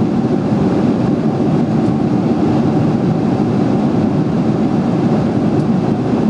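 Steady cabin noise of a Boeing 747-400 airliner in cruise: an even, loud rumble of engines and airflow heard from inside the cabin.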